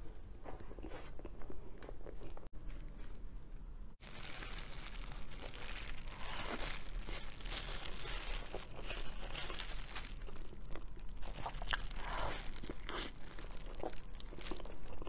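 Close-up eating sounds: wet mouth sounds and chewing of soft cream cake. About four seconds in, plastic film crinkles and rustles as a wrapped crepe roll is handled, mixed with bites and chewing.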